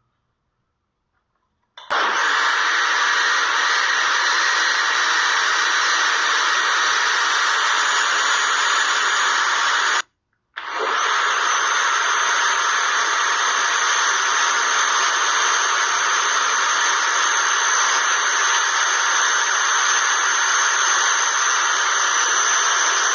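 Britânia 900 W blender motor running at speed, blending thick chocolate cake batter. It starts about two seconds in, stops for a moment near the middle, then runs steadily again.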